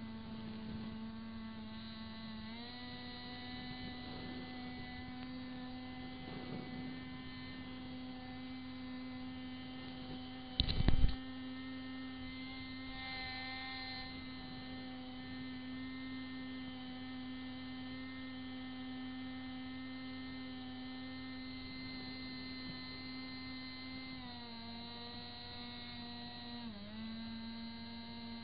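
Boat's outboard motor running steadily under way, a droning tone that rises a little about two and a half seconds in and drops back near the end. About ten seconds in there is a brief loud thump.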